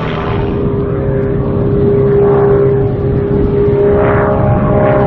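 Pitts aerobatic biplane's engine and propeller running at high power as it flies a display pass, a steady drone that grows louder about a second and a half in.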